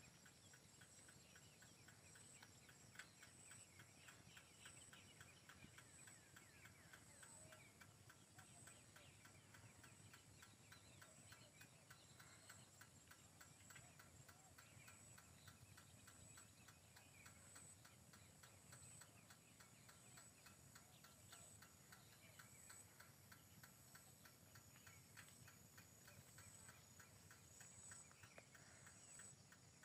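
Faint insect chorus: a high buzzing that pulses about once a second and a rapid, even ticking, with a few faint bird chirps.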